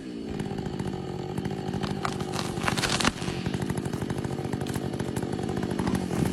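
Chainsaw engine running steadily, its pitch falling and settling into an even note just at the start, with scattered crackles over the engine sound.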